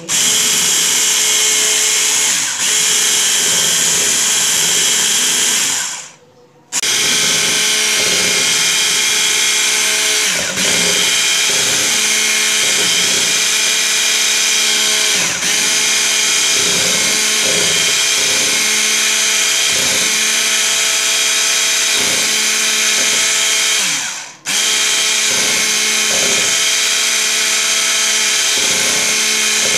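Electric hand mixer running steadily, its twin beaters whipping cream in a glass bowl. The motor breaks off briefly about six seconds in and again, more briefly, near 24 seconds.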